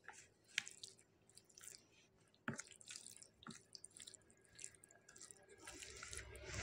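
Faint, scattered wet squelches and soft clicks of fingers mashing and mixing steamed rice with thin mutton curry on a banana leaf, growing louder near the end.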